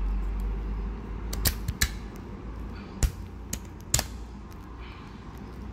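Several sharp plastic clicks and snaps as the battery holder, loaded with three AAA batteries, is pushed back into a Hager wired doorbell chime unit, with a low rumble in the first second or so.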